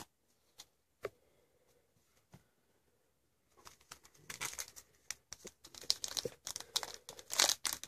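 A few light clicks of cards being handled, then from about three and a half seconds in, the crinkling and tearing of a foil Yu-Gi-Oh booster pack wrapper being opened, growing louder toward the end.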